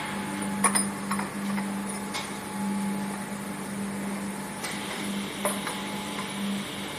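Steady hum of foundry machinery on a vacuum-process moulding line, broken by a few sharp metallic knocks. About two-thirds of the way in, a steady hiss of air starts and keeps going.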